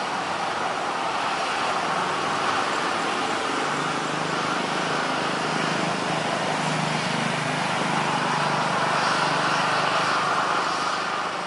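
Boeing 737-800's CFM56-7B jet engines running at low power as the airliner rolls past, a steady rushing hum with a low drone underneath. It swells as the engine draws level, about nine to ten seconds in, then eases off.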